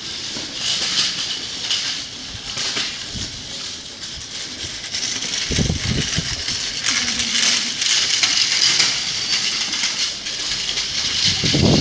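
Metallic jingling and clinking of dog leash clips and collar hardware while two leashed dogs walk, with rustling and dull bumps of handling noise about six seconds in and near the end.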